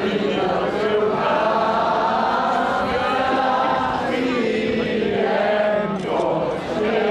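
A large group of voices singing together in unison, slow and sustained, with a short drop in the singing about four seconds in.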